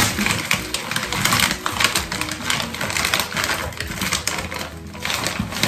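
Plastic bag of berries crinkling and rustling as it is shaken and handled, a dense irregular crackle. The berries are tipped out of it near the end.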